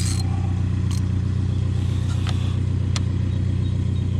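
A steady low mechanical drone throughout, with a few sharp metallic clicks from a wrench working the clutch adjuster lock nut of a Harley-Davidson Softail's derby-cover clutch adjuster.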